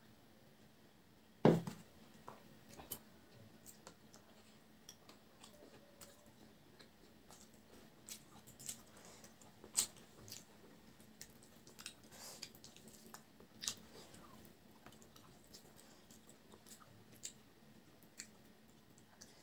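Hand-eating at a table: a glass set down with a single sharp knock about a second and a half in, then quiet, scattered clicks and wet smacks of chewing and of fingers mixing rice and curry on a plate.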